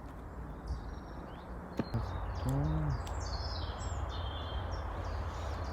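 Forest birds chirping in short, stepped high calls over steady outdoor background noise, with a brief low voice-like hum about two and a half seconds in.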